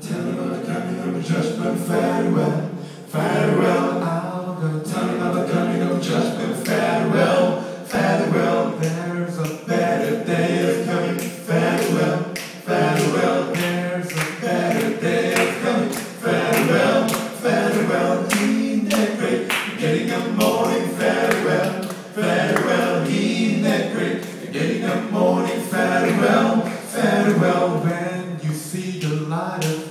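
Male vocal quartet singing a cappella in close harmony into microphones, with a steady beat of sharp clicks running under the voices.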